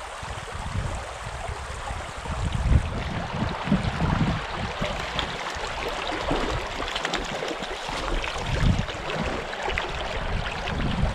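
Shallow trout stream running over gravel, with wind buffeting the microphone in gusts, and a hooked trout splashing at the surface in the second half.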